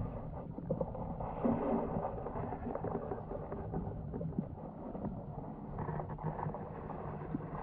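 Muffled underwater water noise picked up by a camera held in the water: a steady low rush with a few scattered small clicks.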